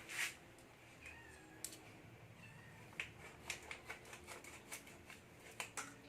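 Light clicks and taps of a spoon against a bowl as mayonnaise is spooned into shredded cabbage coleslaw, with two faint short high squeaks.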